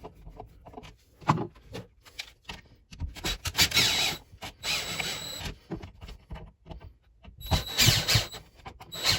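Power screwdriver driving the GFCI receptacle's mounting screws into the electrical box in two runs, each a few seconds long with a steady whine, amid clicks and rubbing as the receptacle is handled.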